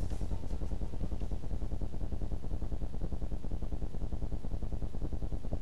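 Low electrical hum-buzz pulsing rapidly and evenly, about nine or ten times a second, with no music over it: hum on an old videotape transfer.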